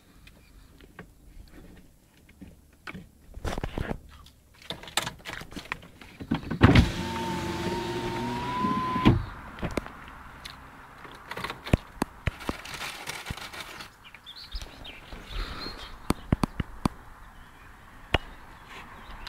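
Car's electric window motor running for about two seconds, a steady whine rising slightly in pitch as the side window is lowered, starting with a knock and stopping abruptly. Scattered clicks and knocks around it.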